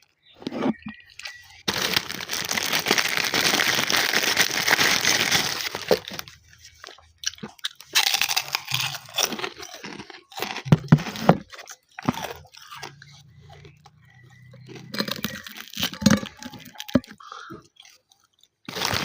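Close-up chewing of crunchy food. A long unbroken run of crunching for about four seconds near the start is followed by irregular bouts of crunching and chewing with short pauses.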